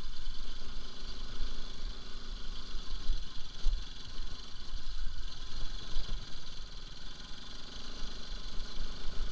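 Bajaj Pulsar RS200's single-cylinder engine running as the motorcycle rides slowly over a rough stony track, under an uneven low rumble from the jolting ride.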